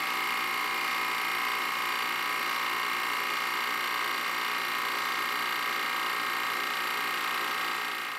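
Carrier refrigeration compressor running steadily with a constant mechanical hum and whine while refrigerant vapor is charged into its suction side; the sound fades out near the end.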